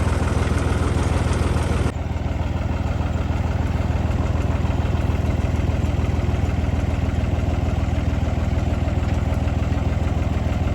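Engine running steadily at low speed. About two seconds in, the higher part of the sound drops away suddenly and it turns slightly quieter and duller.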